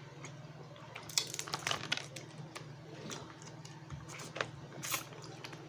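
Crab shells being cracked and picked apart by hand: a run of sharp crackling clicks a little over a second in, then a few single snaps near the end.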